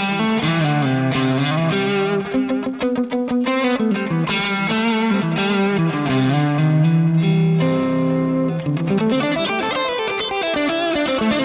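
Distorted electric guitar played through a Line 6 Helix modeller on a Klon-style overdrive lead setting: a single-note lead line with quick picked runs, held notes and string bends.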